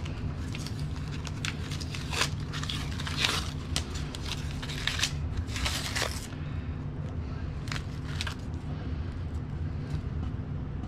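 Thin vinyl scraps and tape strips crinkling and crackling as they are gathered up and pulled off a wooden tabletop by hand: rapid rustling for about six seconds, then a couple of single crackles. A steady low hum runs underneath.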